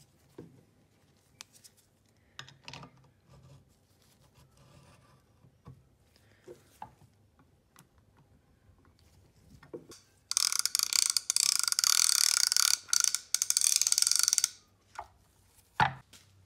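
The spool of a vintage Alvey 550 fishing reel spun by hand against its click check, a loud rapid run of ratchet clicks lasting about four seconds with a short break midway. Before it there are light scattered clicks and knocks of the reel being handled, and a few single clicks after.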